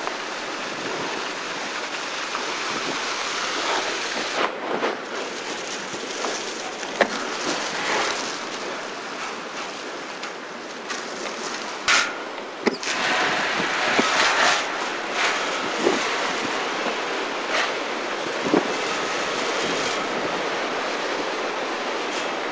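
Wind-driven bushfire burning close by: a steady rushing roar of wind and flame, broken by scattered sharp cracks, the loudest a little after the halfway point.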